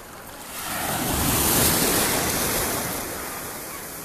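Sea wave washing up over the shallows at the water's edge, a hiss of surf that swells about half a second in, peaks, and fades back over the next couple of seconds.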